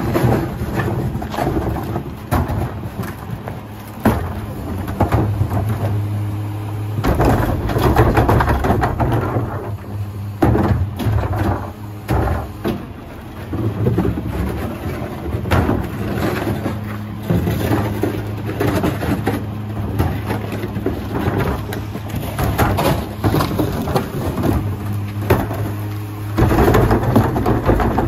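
Mack LR rear-loader garbage truck's diesel engine running steadily while plastic garbage carts are wheeled up and dumped by the rear cart tipper, with repeated clanks and bangs. The running gets louder about seven seconds in and again near the end.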